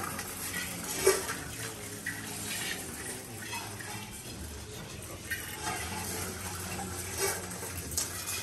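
Rice grains poured and scattered over metal mandala offering plates by several people at once: a steady rattling hiss like running water, with a few sharp metallic clinks, the loudest about a second in.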